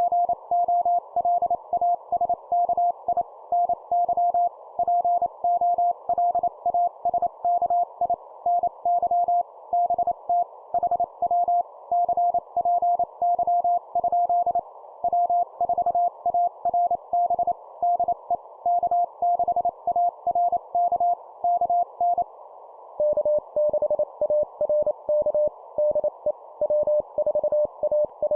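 Morse code (CW) at 25 words per minute: a single tone keyed on and off in dots and dashes over steady hiss. About 22 seconds in the keying stops, and after a short gap it resumes at a slightly lower pitch as the other station takes its turn in the exchange.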